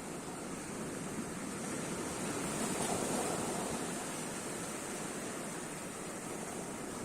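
Sea waves washing onto the shore in a continuous surf wash, one wave swelling louder about three seconds in and then subsiding.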